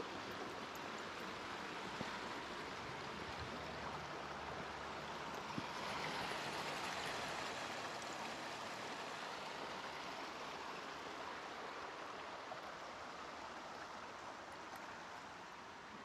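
A small brook running, a steady rushing of water that swells about six seconds in and then slowly fades.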